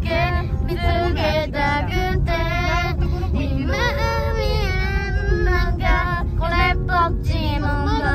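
Children singing loudly, belting out a song in a moving car's cabin, over the car's low road rumble.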